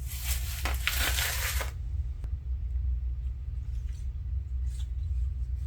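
Duct tape being handled and folded over on itself: a loud crinkling, rasping rustle for the first second and a half or so, then a few faint ticks.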